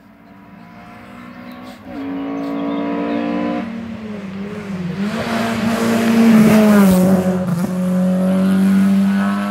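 Race car engine at full throttle climbing a hill-climb course, getting louder as it approaches, its pitch dropping briefly at gear changes. It is loudest as the car passes close by, then cuts off suddenly near the end.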